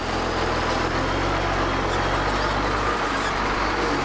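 Container tractor-trailer driving slowly, its diesel engine running with a steady low note under road and tyre noise.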